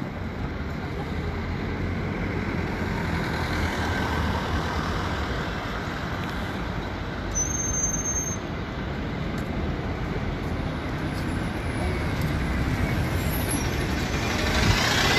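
City bus engine running and passing close by, growing louder near the end, over steady street traffic noise.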